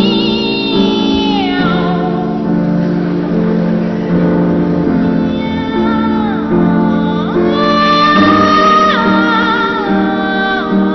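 Boy sopranos singing a comic cat-imitating song with piano accompaniment, their voices sliding down in meow-like glides several times and once sliding up.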